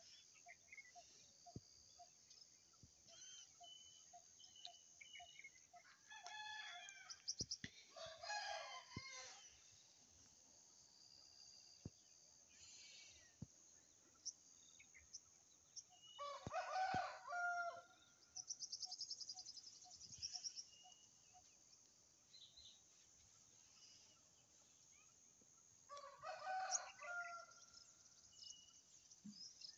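Birds calling: several loud, drawn-out calls of a couple of seconds each, roughly ten seconds apart, with faint small chirps between.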